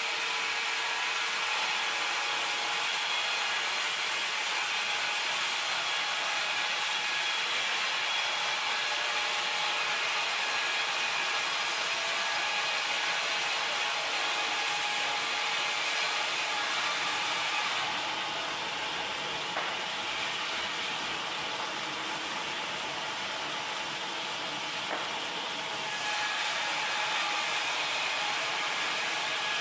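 MKS1200 horizontal band sawmill running, its band blade sawing through wood: a steady machine hiss with a constant hum under it. The high hiss eases for about eight seconds past the middle, then comes back.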